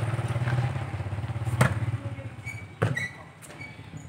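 An engine running with a steady, pulsing hum that fades about two seconds in, and two sharp thuds of a football being kicked, about a second and a half and nearly three seconds in.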